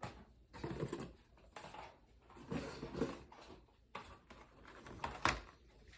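Packaged die-cast toy cars being handled: irregular rustling and light clattering, with a sharper click about five seconds in.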